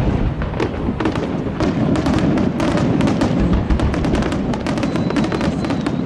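Aerial fireworks display: a rapid volley of bangs and crackles, several a second, over a continuous low rumble of detonations.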